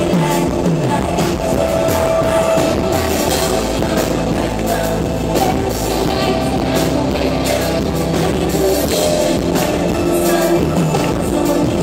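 Live band music: drums, bass and electric guitar behind a female lead singer, heard through a phone recording in which the very strong bass overloads the sound.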